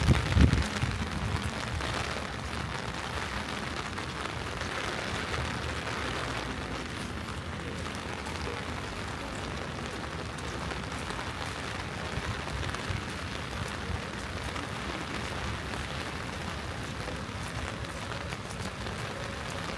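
Steady rain, an even hiss, with a short low thump at the very start.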